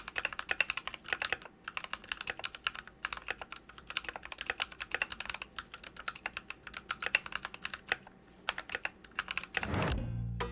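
Fast typing on a mechanical keyboard with Kailh Cream switches and PBT keycaps: a quick, uneven run of keystroke clacks. Near the end the typing stops, and a whoosh leads into guitar music.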